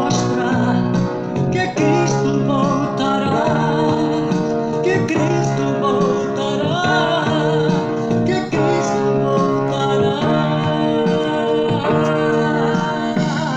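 Brazilian gospel song played from a 1991 cassette tape: a band passage led by guitar, with no lyrics transcribed.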